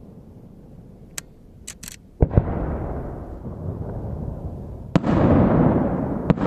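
Aerial firework shells bursting: a few faint crackles, then two sharp booms in quick succession about two seconds in, and another boom about five seconds in followed by a long rolling echo, with a sharp crack near the end.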